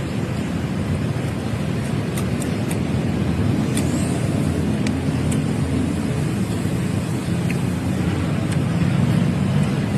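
Steady road-vehicle and traffic noise, with a few faint clicks over it.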